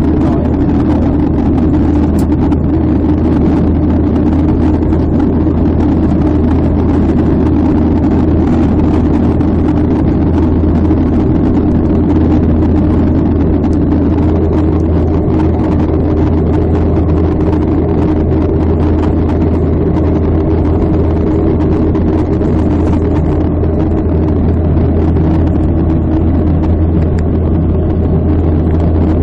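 Steady low drone of a jetliner's engines and rushing air heard inside the cabin during the climb after takeoff.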